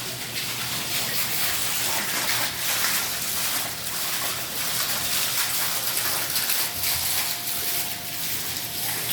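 Steady rushing, hissing noise like running water, even throughout, with a faint thin steady tone joining in about seven seconds in.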